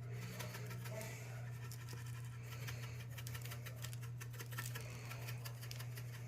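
Seasoning being worked onto raw New York strip steaks: light scratching with many fine, irregular clicks, over a steady low hum.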